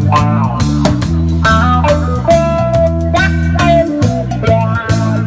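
Rock band playing an instrumental passage: a guitar melody over bass guitar and a drum kit keeping a steady beat.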